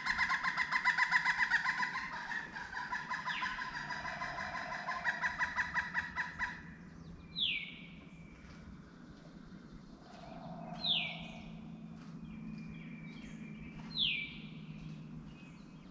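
Bird calls: a rapid chattering run of calls for about the first six seconds, then a short falling call repeated about every three seconds.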